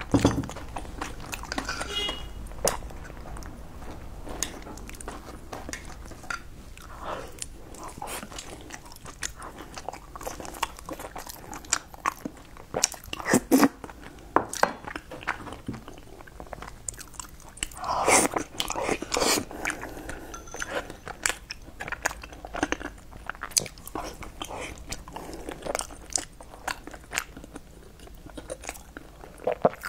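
Close-miked chewing and biting: wet mouth clicks and smacking as a person eats soft stuffed buns, with louder stretches of chewing about halfway through and again around two-thirds of the way in.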